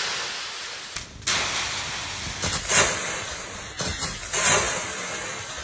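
Dry autumn leaves rustling and crunching in several short surges as a dog jumps and ploughs through a leaf pile.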